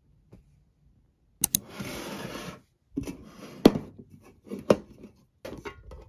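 Kitchen handling sounds: a noisy rustle lasting about a second, starting with a couple of sharp clicks, then a series of sharp clicks and knocks, the loudest a little past the middle.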